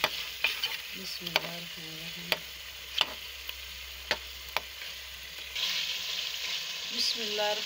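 Chicken frying in masala in a metal pot, stirred and scraped with a spatula: a steady sizzle with several sharp clinks of the spatula against the pot in the first few seconds. The sizzle grows louder about two-thirds of the way through. The chicken is at the bhuna stage, being fried until well done.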